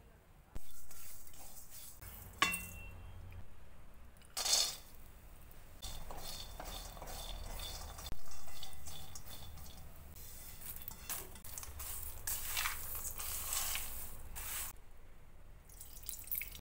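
A spatula stirring and scraping black sesame seeds and chopped walnuts around a steel kadai as they dry-roast, with the seeds and nuts rustling against the metal and an occasional clink.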